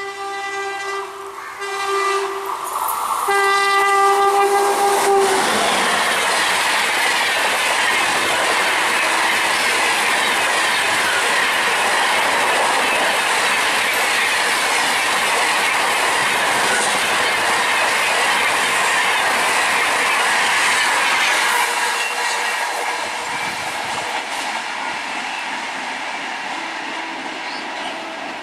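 A WAP-7 electric locomotive's horn sounds in three blasts, the last the longest, as the train comes up fast. Then comes a loud, continuous rush of steel wheels and LHB coaches passing close by for about fifteen seconds, which fades as the train draws away.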